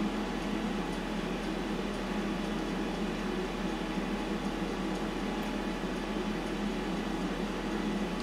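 Steady whirring hum of a running fan motor, even and unchanging, over a constant low electrical hum.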